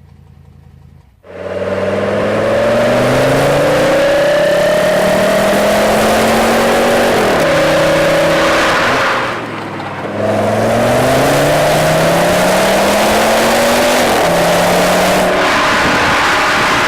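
V10 sports car engine accelerating hard: after a quiet idle for the first second it opens up, the engine note climbing through the revs and dropping back at each upshift, about twice, before climbing again.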